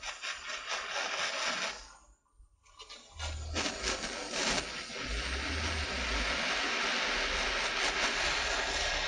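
Handheld butane canister torch burning with a steady hiss while heating a metal joint for brazing with low-temperature flux-cored wire; the hiss drops out briefly about two seconds in, then runs on evenly.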